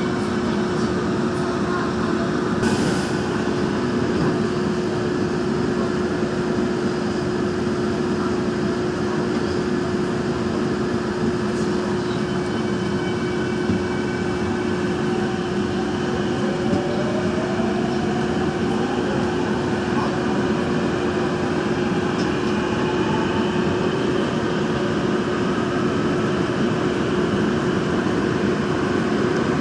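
Daejeon Metro Line 1 train running through a tunnel, heard from inside the car: a steady rumble of wheels on rails with a constant hum. There is a sharp click about three seconds in, and from about the middle a motor whine rises in pitch as the train picks up speed.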